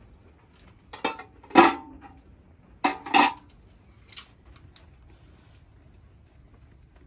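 Steel cooking pot, its metal lid and a ladle clanking together as the lid is set on the pot. There are four sharp clatters in the first few seconds, the loudest about a second and a half in, and a fainter clink just after four seconds.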